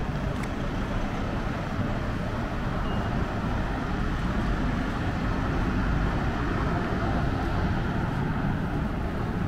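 Steady road traffic noise from vehicles driving along the street.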